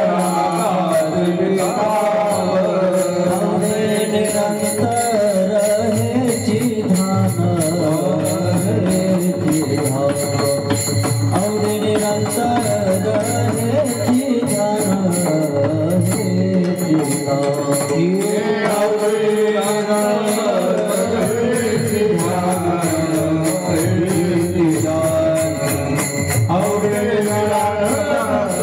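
Devotional Marathi kirtan singing of a panchapadi, a voice carrying a bending melody over sustained accompaniment, with jingling cymbals keeping an even beat throughout.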